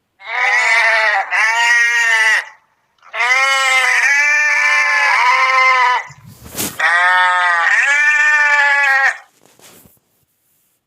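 Bleating sheep or goats: a run of loud, wavering calls in three bursts with short gaps, and a single thump between the second and third bursts about six and a half seconds in.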